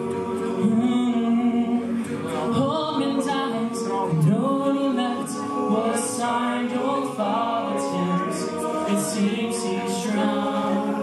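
All-male a cappella group singing in close harmony, several voices holding chords that shift every second or so, with no instruments.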